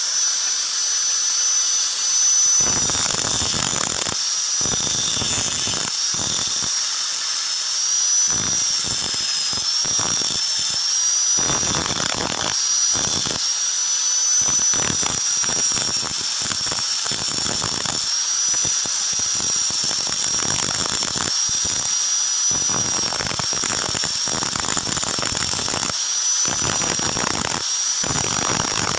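Angle grinder motor running with a steady high whine that wavers slightly in pitch. Its disc bites into a leaf-spring steel cleaver blade in repeated short passes, each a grinding rasp, with brief gaps between them.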